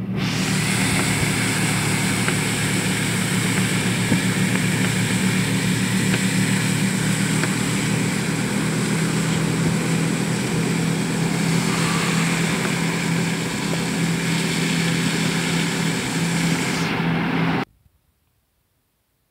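A steady mechanical drone with a hiss over it, like an engine or motor running, which cuts off abruptly about seventeen seconds in.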